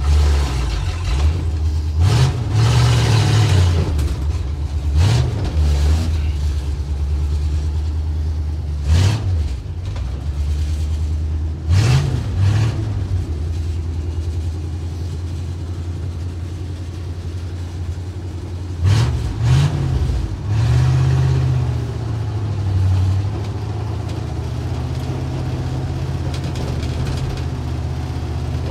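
The 1962 Ford C750 cabover's 332 Y-block V8 pulling the truck along in first gear, heard from inside the cab: a steady low drone that rises briefly several times as the throttle is pressed. A handful of short sharp knocks ring out over the engine.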